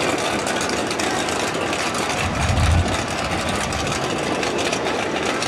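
A drag car's carbureted V8, fed by twin four-barrel carburettors, idling steadily, with a brief low swell a little under halfway through.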